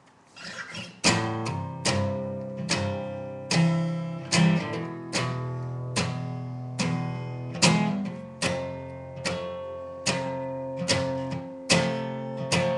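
Acoustic guitar intro: chords strummed at a steady pace, a little over one strike a second, each one ringing out before the next, with the chord changing every few strikes.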